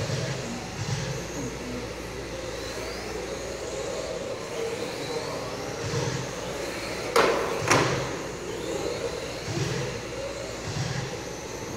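Electric RC race cars running on an indoor carpet track, their motors whining and rising in pitch again and again as they accelerate out of corners. About seven seconds in come two sharp knocks half a second apart, the loudest sounds here.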